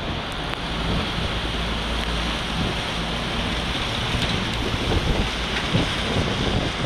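Wind buffeting the microphone over the low, steady rumble of an Airbus A330 airliner's jet engines at taxi power, with a few stronger gusts in the second half.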